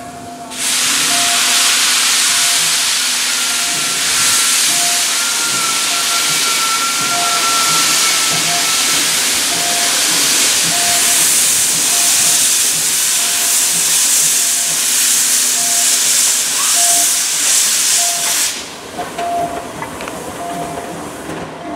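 Steam locomotive C61 20 venting steam in a loud, continuous hiss as it moves slowly past. The hiss starts suddenly just after the start, holds for about eighteen seconds, then cuts off abruptly. Short regular beeps continue underneath.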